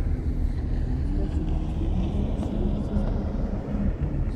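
CityCat catamaran ferry underway, its engines making a steady low rumble heard on board, with voices murmuring faintly over it.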